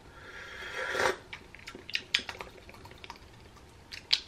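A slurping sip of hot tea from a ceramic mug, a rising hiss of air and liquid lasting about a second, followed by a few light clicks and taps.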